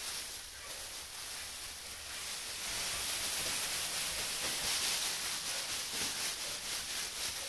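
Dry hay rustling as it is pulled off a bale by hand and spread over a straw-bedded floor, getting louder about three seconds in.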